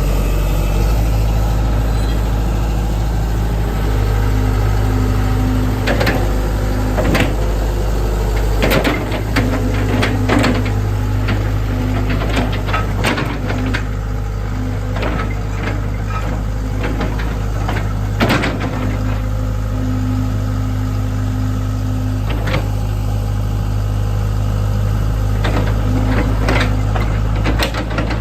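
Hitachi ZX70 excavator's diesel engine running steadily, with scattered sharp metallic knocks and clanks.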